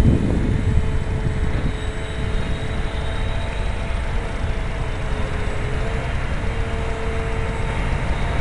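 Brushless electric motor and 8x3 propeller of a small foamboard RC plane whining in flight, the pitch wavering a little as it flies, under a heavy low rumble of wind on the microphone.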